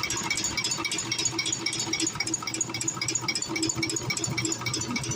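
Old Ford diesel engine idling with a steady, evenly repeating rattling clatter over a low hum.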